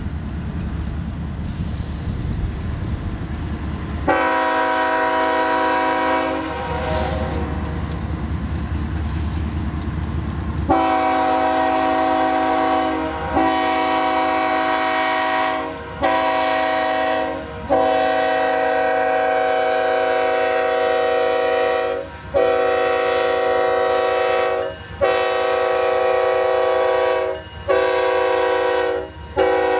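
Air horn of an approaching BNSF GE Evolution-series diesel locomotive, a Nathan K5LA per the uploader, sounding a long run of chords over the low rumble of the lead units' engines. The first blast comes about four seconds in. After a pause, blast follows blast from about ten seconds on, most two to four seconds long with brief breaks between them.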